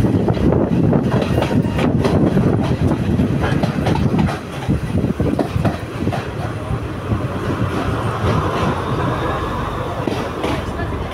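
Diesel multiple unit passenger train heard from its open doorway while moving: a heavy rumble with wheels clicking over rail joints. About four seconds in the noise drops, with a few sharp clacks, and then keeps easing as the train slows into a station.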